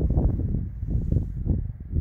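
Wind buffeting the microphone: a low, gusting rumble that swells and dips unevenly.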